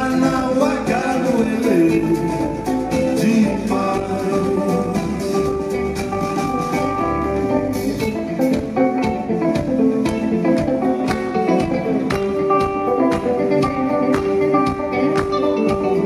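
Live band music: electric guitar over a steady drum beat, with long held notes.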